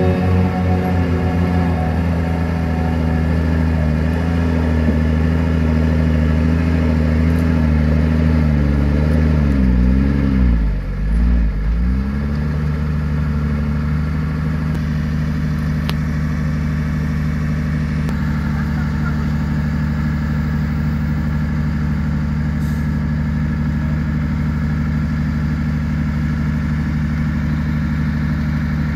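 Heavily loaded Mercedes-Benz dump truck's diesel engine labouring up a steep dirt slope of loose stones, its note dipping and recovering about ten seconds in, then running steadily. The truck is too heavy for the slope and cannot make the climb.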